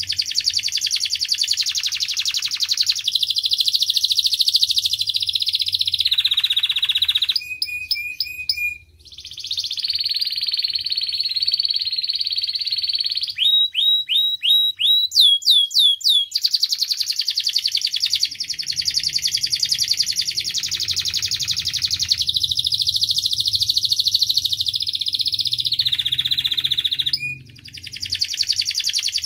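Domestic canary singing: long, rapid rolling trills, broken by a few short repeated notes about eight seconds in and a run of fast downward-sweeping notes around fourteen to sixteen seconds in, with two brief pauses.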